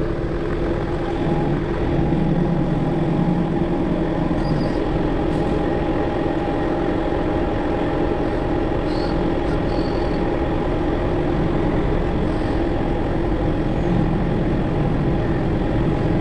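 Freightliner Classic XL's diesel engine running steadily at low revs as the bobtail tractor creeps forward, heard from inside the cab. A few faint high squeaks come in the middle.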